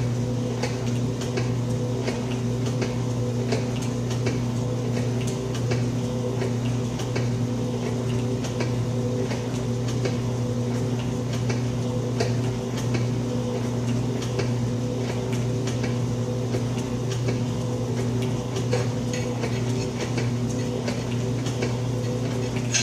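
Old Atlas metal shaper running under its electric motor: a steady motor hum with a regular clatter of clicks as the ram strokes back and forth. The machine shuts off abruptly at the very end.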